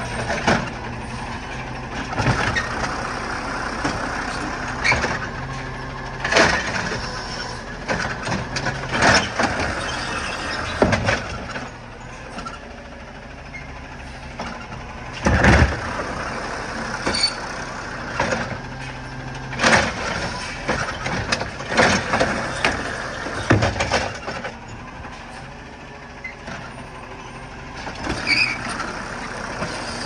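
Automated side-loader garbage truck working at the curb: the diesel engine runs steadily while the hydraulic arm grips and lifts a wheeled trash bin, with repeated clanks and knocks of metal and plastic. The heaviest thud comes about halfway through.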